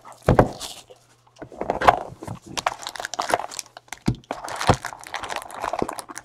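Cardboard trading-card hobby box being handled and opened: a run of short knocks, rustles and tearing of cardboard, with a brief lull about a second in.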